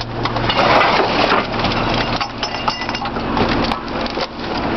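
A rear-load garbage truck's packer blade crushing bags of household trash in the hopper: a dense, irregular crackling and crunching of plastic bags and their contents, over a steady low hum from the truck.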